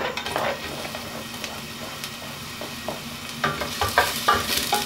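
Chopped onion sizzling as it fries in oil in a stainless steel pot, with a knock as it is scraped in at the start. From about three and a half seconds in, a wooden spoon knocks and scrapes against the pot as the onion is stirred.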